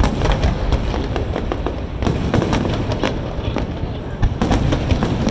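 Aerial fireworks going off in rapid, overlapping bangs and crackles over a continuous low rumble, with a few louder reports near the start, about two seconds in and near the end.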